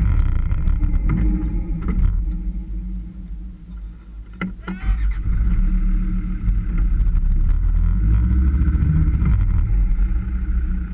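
Off-road 4x4's engine running under load. It drops away for a second or two just before the middle, with a brief high squeak, then pulls strongly again for the rest.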